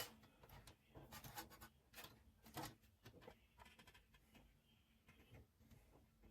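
Faint rustling and light clicks of PC power cables being handled and routed inside a small computer case, most of it in the first few seconds.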